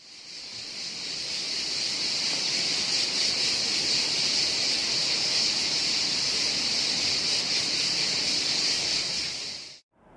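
Steady, high-pitched buzzing drone of a cicada, fading in over the first couple of seconds and cutting off abruptly near the end.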